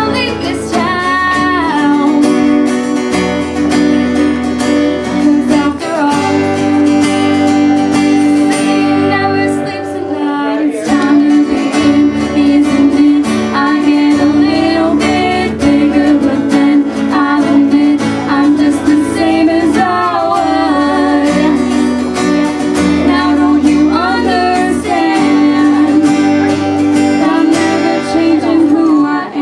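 A song: a woman singing over strummed acoustic guitar with a bass line.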